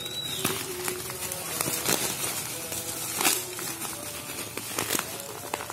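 Bubble wrap and packing tape crinkling and crackling as the parcel is cut open with a utility knife and pulled apart by hand.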